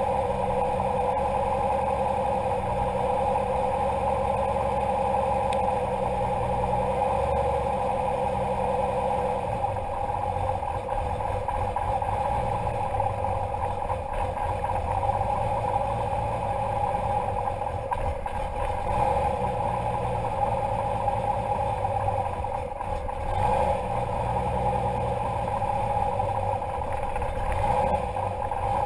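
Turbocharged 1966 Austin-Healey 3000 MkIII rally car engine idling steadily, heard from inside the open cabin.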